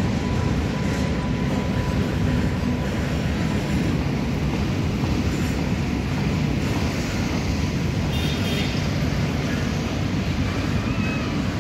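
Freight train of loaded BFNV steel-coil wagons rolling past: a steady, continuous rumble of wheels on rail.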